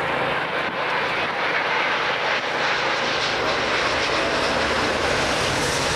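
Airbus A380's four turbofan engines during a low, slow flypast: a loud, steady jet noise that grows brighter and hissier from about two seconds in as the airliner comes close and passes.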